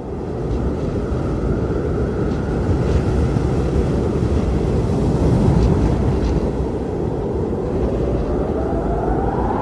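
Strong cyclone winds blowing, buffeting the microphone with a deep, steady rumble that swells slightly in the middle. A faint rising tone comes in near the end.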